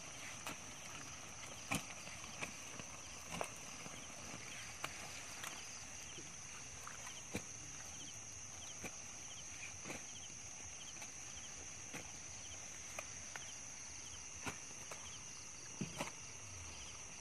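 Quiet outdoor ambience: a steady high-pitched drone with faint repeated chirps, and scattered small clicks and knocks.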